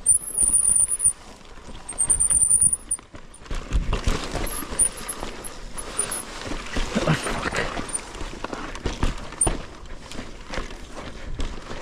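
Mountain bike rattling and clattering over rough, rutted dirt singletrack at speed, irregular knocks from the chain, suspension and frame over a steady rumble of tyres on dirt. A few short high squeals come in the first few seconds.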